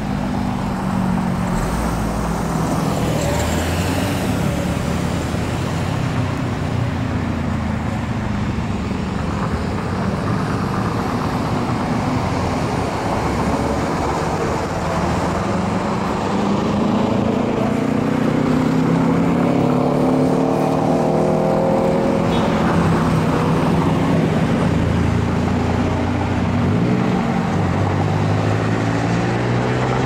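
Road traffic at an intersection: cars passing and pulling away over steady tyre and road noise, engine pitch rising as vehicles accelerate around the middle and again near the end.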